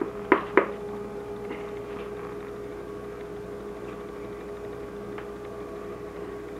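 Two sharp knocks about half a second in, then faint clinks and taps as mashed potatoes are spooned out of a pot onto the meat layer of a shepherd's pie in a glass baking dish. A steady electrical hum runs underneath.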